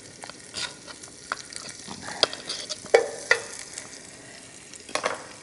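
Butter spooned from a glass bowl into a skillet: a spoon taps and clicks against the bowl and pan several times over a steady low sizzle of frying.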